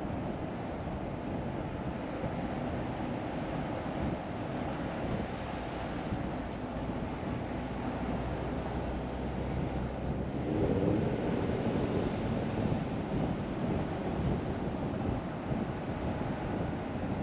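Steady road and wind noise of a car being driven, with a slightly louder swell about ten seconds in.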